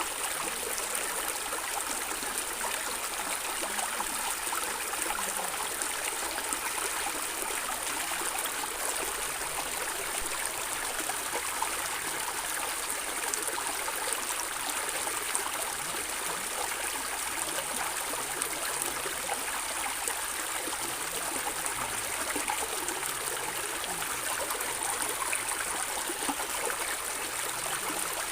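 A small stream running and gurgling, a steady rush of water with fine bubbling.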